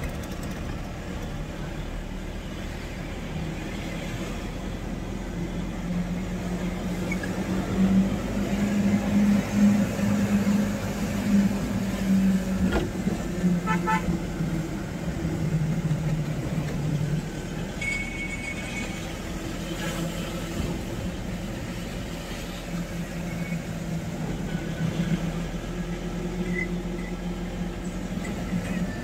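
Moving vehicle's engine running steadily, its note louder and a little higher from about eight to twelve seconds in, then dropping back. Short horn toots sound about fourteen seconds in and again, slightly longer, about eighteen seconds in.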